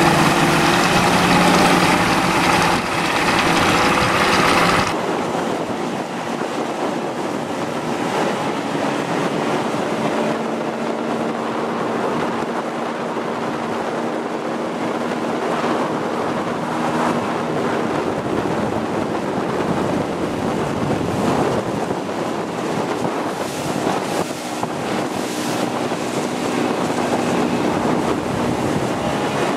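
Outboard motors running at speed across open water, with wind buffeting the microphone and water rushing past the hull. The engine sound drops about five seconds in, leaving a steadier, lower hum under the wind.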